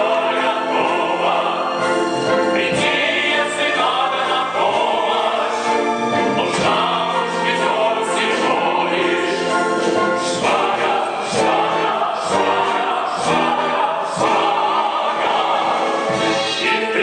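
Several singers with orchestral accompaniment performing a number from a stage musical, with no pause.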